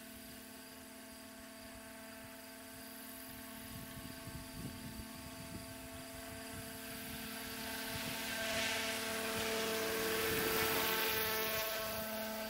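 Electric 700-size RC scale helicopter in flight: steady whine of its brushless motor and main rotor. It grows louder as it comes close, about eight to eleven seconds in, and eases off again near the end.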